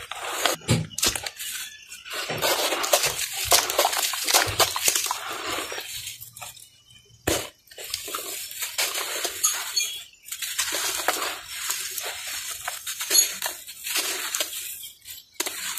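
Hands squeezing and mixing wet, gritty red dirt in water in a plastic basin: wet squelching and sloshing with gravelly grit grinding, in irregular bursts. There is a short pause about six seconds in.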